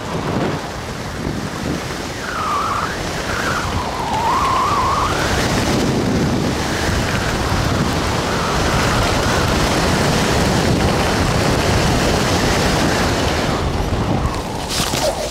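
Wind rushing over a helmet camera's microphone as a parachute canopy descends to landing, with a short wavering high tone about two to five seconds in. The wind eases near the end as the jumper touches down.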